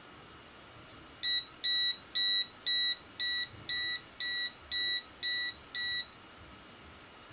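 FNIRSI TP10 non-contact voltage tester beeping, signalling that it senses AC voltage. There are ten short, even, high-pitched beeps, about two a second, starting about a second in and stopping about six seconds in.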